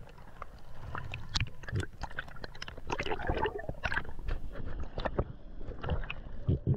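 Underwater sound in the shallows picked up through the camera housing: irregular sharp clicks and crackles over a low rumble of moving water, with a brief gurgle about three seconds in.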